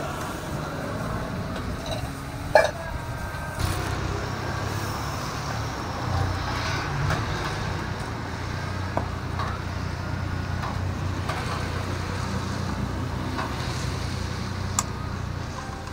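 Steady low rumble of road traffic, with a sharp clack about two and a half seconds in and a lighter one near the end.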